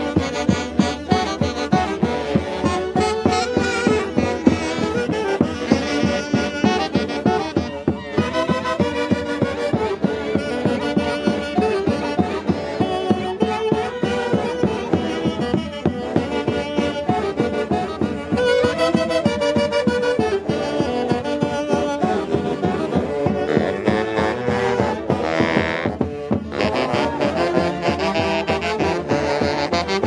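Peruvian orquesta típica playing a lively tune: a section of saxophones with clarinets and a harp, over a steady beat.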